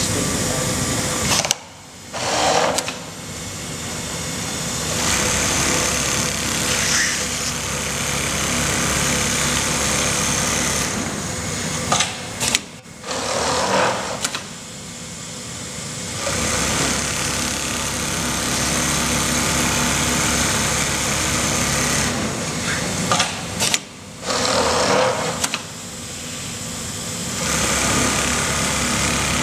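Jooke computerised template sewing machine running steadily as it stitches shirt collars held in an acrylic template. The sound briefly drops out three times, about every eleven seconds, and each drop is followed by a short louder burst.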